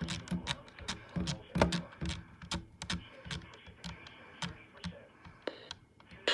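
Typing on a computer keyboard: irregular quick key clicks and taps, a few per second.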